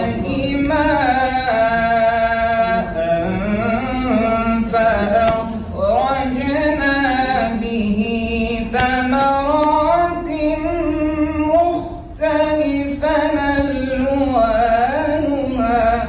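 Solo voice chanting Quran recitation in a melodic tajweed style, holding long, ornamented notes that slide up and down in pitch, with a short break about three-quarters of the way through.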